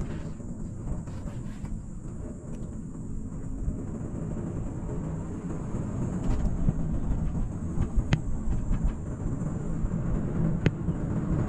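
Cable car gondola riding along its haul cable, heard from inside the cabin: a steady low rumble that grows louder about halfway through as the cabin runs past a support tower's roller sheaves, with a few sharp clicks.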